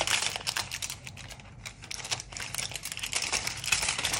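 A sheet of aluminium foil crinkling and crackling as it is unfolded and smoothed out by hand, in a fast run of tiny clicks. It eases off around the middle and grows louder again near the end.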